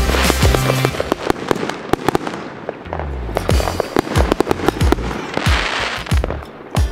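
Fireworks going off in many quick sharp bangs and crackles, with a brief hissing stretch late on. Background music with a low bass line plays underneath.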